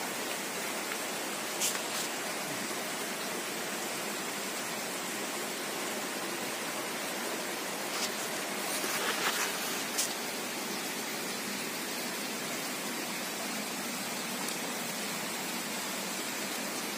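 A steady, even hiss, with a few light clicks about two seconds in and a short cluster of clicks around nine to ten seconds in.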